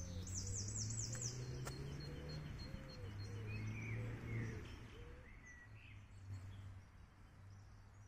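Small songbirds singing: a rapid high trill in the first second, then scattered softer chirps, over a steady low hum.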